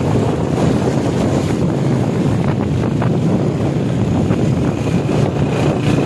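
Steady wind rush on the microphone of a moving vehicle, with a low engine drone and the hiss of heavy rain and tyres on a wet road.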